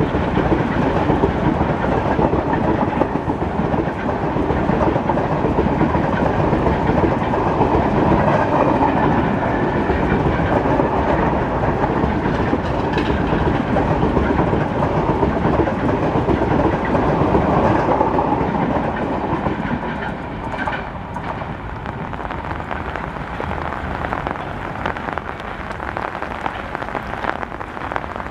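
Train running on the track in heavy rain, wheels clattering over the rail joints amid steady rainfall. About two-thirds of the way in the train noise eases and the rain carries on.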